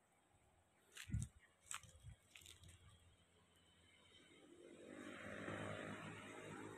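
Faint outdoor quiet broken by a few sharp clicks and a low thump about a second in. Then a motor vehicle is heard approaching, its sound rising over the last few seconds.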